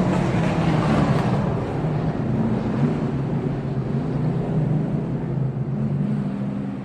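A vehicle engine running loudly and steadily, with a rush of broad noise that swells over the first second or so and then eases a little.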